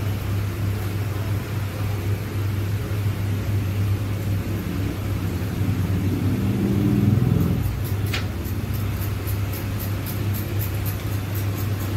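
Steady low hum, with a single short click about eight seconds in.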